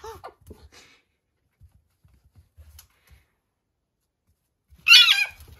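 Red fox and puppy play-fighting: faint scuffling and paw thumps, then near the end a short, loud, high-pitched cry that falls in pitch.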